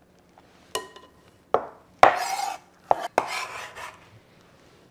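Chef's knife scraping minced carrot across a wooden cutting board, two scrapes of about half a second each, among several sharp taps of the blade and board; one tap about a second in rings briefly.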